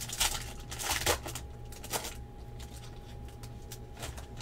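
Stack of football trading cards slid and flipped through by hand: several short papery swishes in the first two seconds, then softer handling and one more swish near the end.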